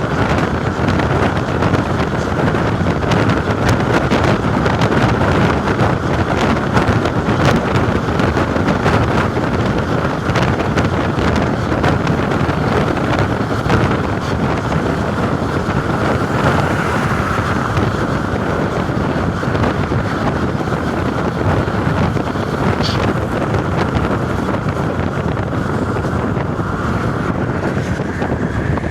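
Volvo B10M bus's underfloor straight-six diesel engine running steadily, with wind buffeting the microphone.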